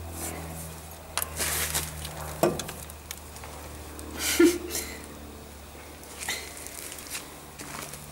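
Land Rover wheel hub and brake disc being worked by hand onto the stub axle: scattered scrapes, knocks and sharp clicks of metal on metal, the loudest about four and a half seconds in, over a steady low hum.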